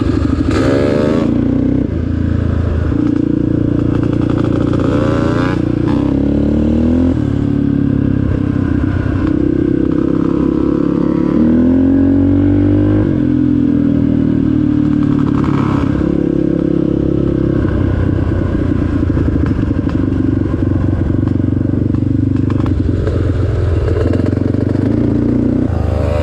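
Off-road vehicle engine running under load, its pitch rising and falling repeatedly as the throttle is opened and eased off.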